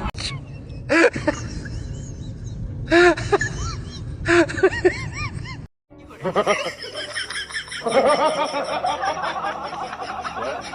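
Laughter and snickering over music, in short loud bursts, cut off abruptly a little past halfway before denser music-like sound takes over.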